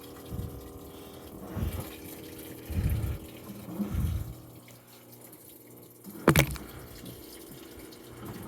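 Samsung washing machine running a wash: water sloshing in the drum in regular surges about every second and a quarter over a steady hum, with one sharp clunk about six seconds in.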